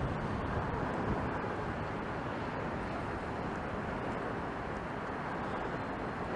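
Steady outdoor background rush with no distinct events.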